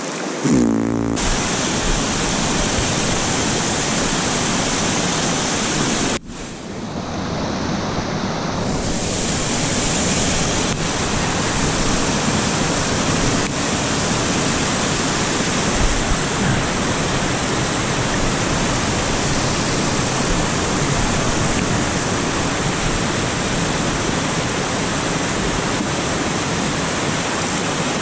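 Rushing water of a small mountain-creek waterfall and cascades close by: a steady rush of falling water. It drops away suddenly about six seconds in and swells back over a couple of seconds.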